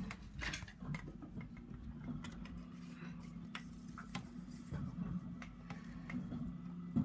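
A refuse truck's engine running steadily outside, heard as a low hum through a closed window. Scattered light clicks and taps from the blind slats against the phone.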